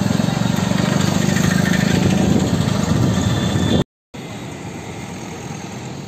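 A small vehicle engine runs close by, loud and steady with a fast even pulse. It cuts off suddenly near the middle, and quieter steady street noise with passing traffic follows.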